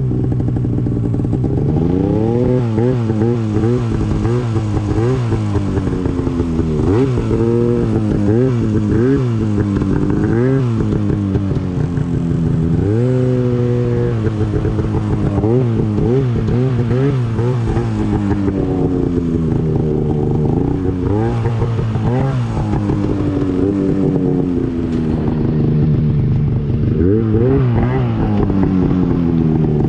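Mountain snowmobile's two-stroke engine revving in repeated short throttle bursts while riding downhill through snow. The pitch rises and falls every second or two, with one longer held rev about halfway through.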